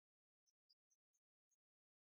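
Near silence, broken by a few very faint, short high-pitched blips.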